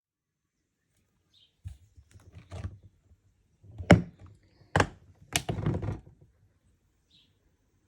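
Several sharp clunks and knocks with rustling between them, as camping kitchen gear and its toolbox-style storage boxes are handled. The loudest knocks come in the middle.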